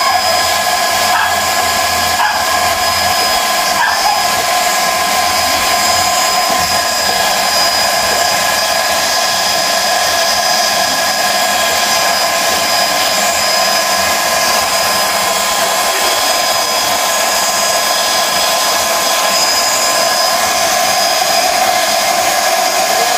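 GX-E-CS2 12-volt portable high-pressure air compressor running steadily as it pumps up a small high-pressure air tank: a loud, even machine whine with several constant tones from its motor, pump and cooling fan.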